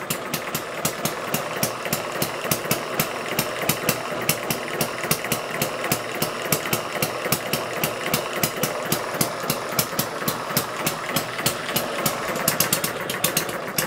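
Small Chinese model hit-and-miss engine running steadily while belt-driving a dynamo, with an even, rapid ticking beat over a constant running hum.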